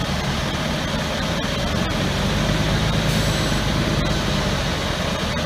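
1988 Ford L-9000 dump truck's Cummins diesel engine idling steadily, a little louder for a couple of seconds mid-way.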